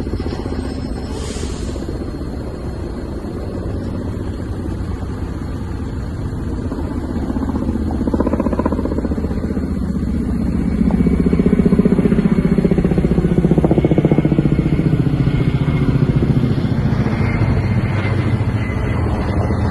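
Boat engine running steadily, growing louder about ten seconds in and easing a little near the end.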